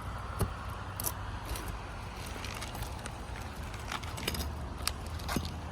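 Scattered light clicks and scrapes of a metal roof snake working under 3-tab asphalt shingles to pull a roofing nail, over a steady low rumble.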